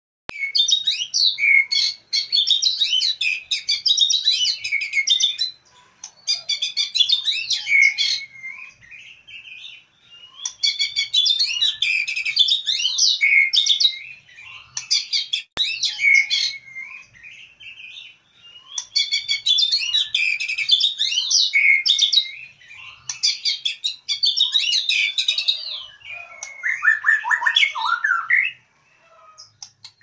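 White-rumped shama (murai batu) singing in a cage: loud, varied phrases of whistles and fast chattering notes, sung in bursts of a few seconds with short pauses between. Near the end comes one lower-pitched phrase.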